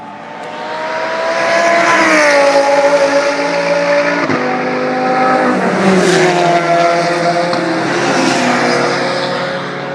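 Race cars passing at speed one after another, each engine note dropping in pitch as it goes by. The first pass-by, about two seconds in, is the loudest, and more follow a few seconds apart.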